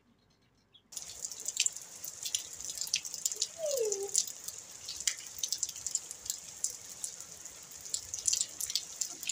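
Rain falling and splashing on a wet rooftop floor, a dense hiss of drops that starts abruptly about a second in. A short falling tone sounds a little after three seconds in.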